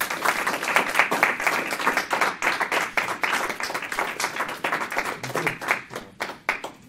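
A small audience applauding: the clapping starts suddenly and thins out to a few scattered claps near the end.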